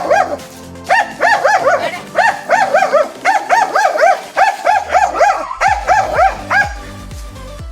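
A dog barking in a quick, excited run of high yaps, about three or four a second, stopping near the end.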